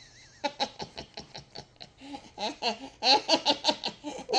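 A woman laughing, starting softly about half a second in and growing into louder, rapid bursts of laughter over the last two seconds.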